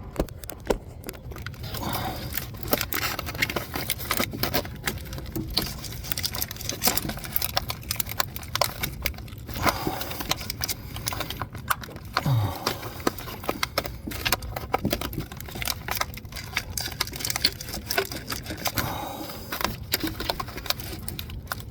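Irregular clicking, scraping and rustling of hands working a rubber vacuum hose and its small spring clamp onto a fitting, mixed with handling noise from the phone held close.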